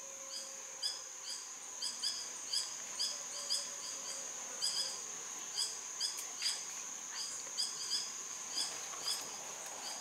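Forest sound: a steady high-pitched insect drone, with short chirping calls repeated at about two a second.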